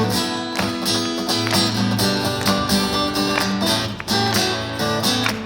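Live acoustic guitars strumming a steady, upbeat rhythm of chords as the instrumental intro of a song, before the vocal comes in.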